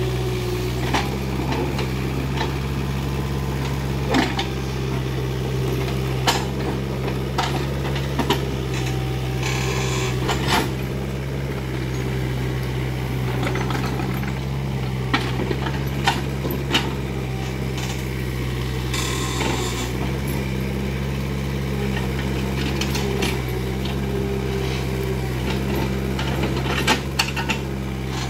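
Kubota mini excavator's diesel engine running steadily, with scattered sharp cracks and knocks of trees and branches being broken and pushed over, and a couple of brief hissing rustles.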